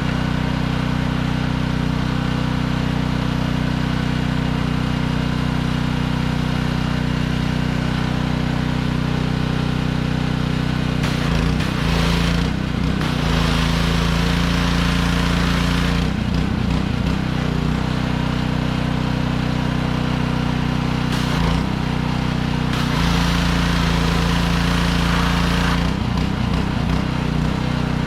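Gas-engine pressure washer running steadily, with the hiss of its spray wand, fitted with a sandblasting kit, swelling in for a few seconds at a time as the trigger is squeezed, three times. The engine's note shifts slightly as each spray starts and stops.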